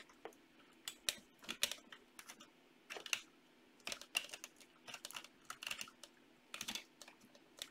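Irregular plastic clicks and knocks in small clusters as an HDMI cable plug is worked into the Jetson Nano board's port on a LEGO Mindstorms robot, the LEGO parts rattling under the hands.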